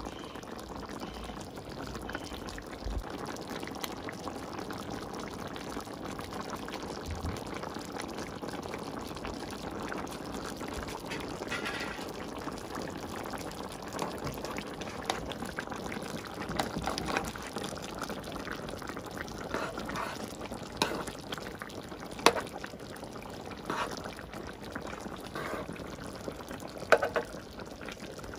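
Creamy fish-and-vegetable sauce simmering and bubbling steadily in a wide pan, with a few sharp clicks of a spoon against the pan in the second half.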